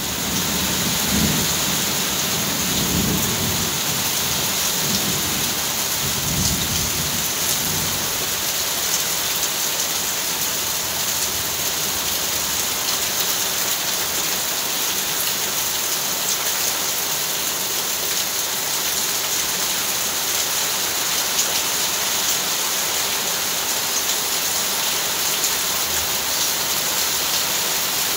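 Heavy downpour falling steadily, with a low rumble of thunder over the first several seconds that fades out.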